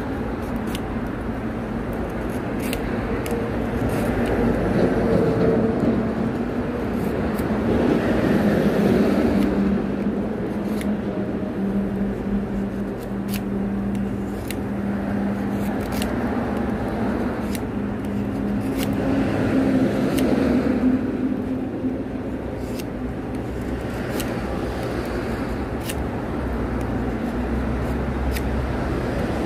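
Small knife shaving a soft wooden float blank, faint scraping clicks as each shaving is cut, over a steady low rumble that swells twice.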